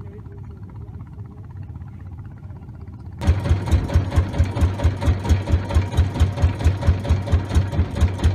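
Boat engine running with a loud, even low thudding of about three beats a second, which starts abruptly about three seconds in; before that only a quieter low rumble.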